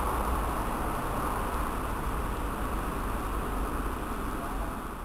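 Mercedes-Benz fire engine's diesel engine idling steadily, a low rumble under a hiss, heard through the closed fire station bay door; it fades a little near the end.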